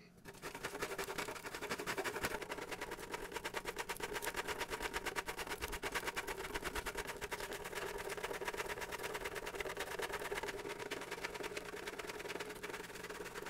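A chocolate bar being grated on a stainless steel box grater: rapid, even scraping strokes, several a second.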